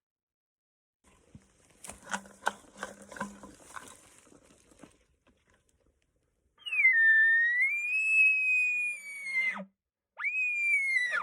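Bull elk bugling: a series of low grunting chuckles, then a long high whistling bugle that dips and rises again, and near the end a shorter bugle that falls away.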